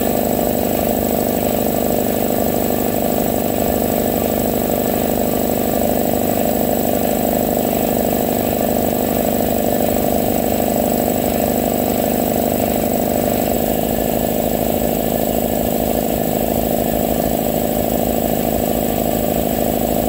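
Belt-driven electric air compressor running steadily, its piston pump charging the tank during a timed pump-up test to measure its airflow.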